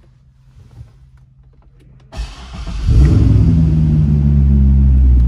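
2008 Chevrolet Corvette V8 with an upgraded exhaust starting, heard from inside the cabin. About two seconds in the starter cranks briefly, the engine fires with a flare of revs about a second later, then settles into a steady, loud idle.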